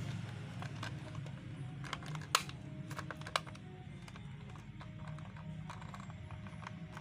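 Light plastic clicks and taps as a toy car's hollow plastic body is handled and fitted back together, with the two sharpest clicks about two and a half and three and a half seconds in.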